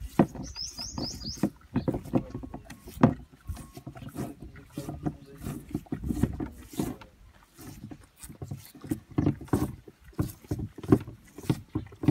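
Desi cows licking lumps of pink rock salt: rapid, irregular rasping and slurping tongue strokes. A short run of high quick chirps sounds near the start.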